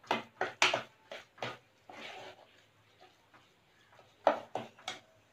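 A metal spoon stirring a thick batter in a stainless steel saucepan, scraping and clicking against the pan's sides and bottom in quick, irregular strokes, with a pause in the middle before a second flurry of strokes.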